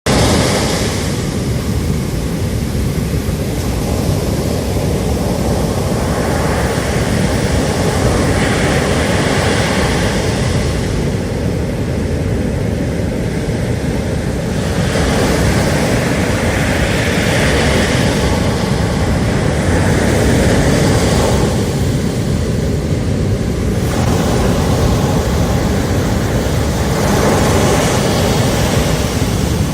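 Ocean surf roaring onto a sandy beach: a continuous rush of breaking waves, with a fresh wave surging in every few seconds.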